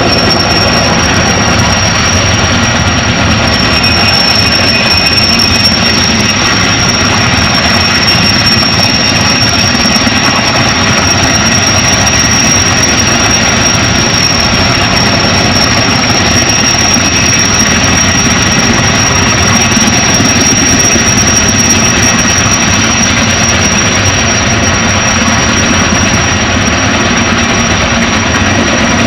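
Helicopter turbine running close by: a loud, steady engine noise with a high whine held throughout.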